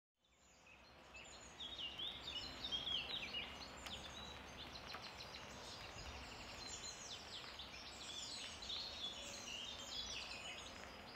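Small birds chirping and twittering, many short quick calls overlapping, over faint outdoor background noise. The sound fades in out of silence within the first second.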